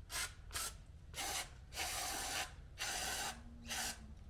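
Aerosol spray can hissing in about six short bursts of different lengths, cleaning junk out of a tractor's front hub housing.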